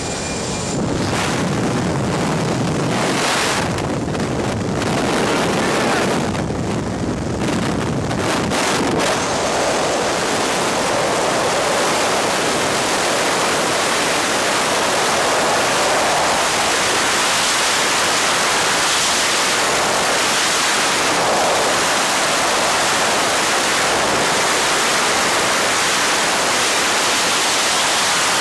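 Skydiving freefall wind rushing loudly over the instructor's camera microphone: uneven and gusting for the first several seconds around the exit from the aircraft door, then a constant, steady rush of air.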